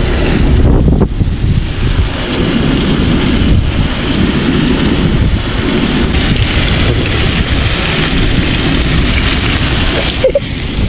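Strong wind buffeting the microphone, over ribeye steaks sizzling in butter in a frying pan; the wind drops briefly near the end.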